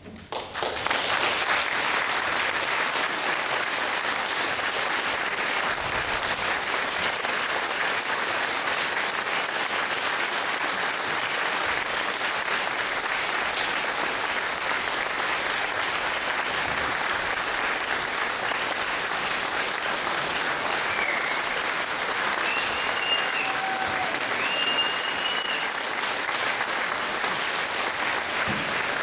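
Audience applauding steadily, breaking out as soon as the choir music stops, with a few brief high-pitched whistles or calls over it near the end.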